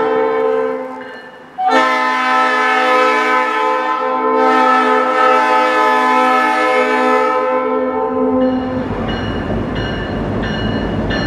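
Freight diesel locomotive blowing its air horn on approach: a horn chord fading out at first, then one long blast of about six seconds. When the horn stops, the engine's low rumble comes up with the locomotive bell ringing about twice a second.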